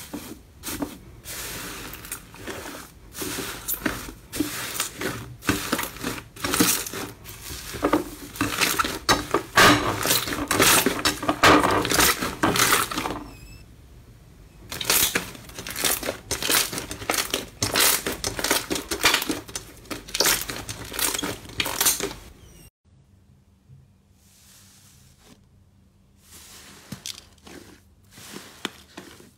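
Slime covered in red metallic foil flakes being pressed and kneaded by hand, the foil crinkling and crackling in rapid, dense bursts, with a short pause about halfway. After an abrupt cut a little before the end, a pink slime is pressed by hand, much more quietly.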